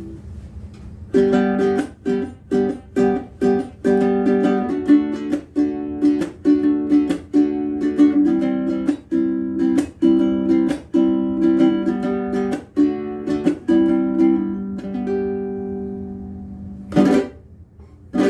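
Bruko mahogany baritone ukulele with a bone saddle, played as a steady run of chords about two a second, ending on a chord left to ring out. Two short sharp sounds come near the end.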